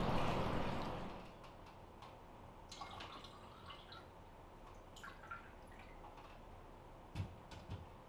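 Hot spring bath water flowing and splashing, cut off about a second in, then a quiet room with a few soft clinks of teaware being handled at a table and two low knocks near the end.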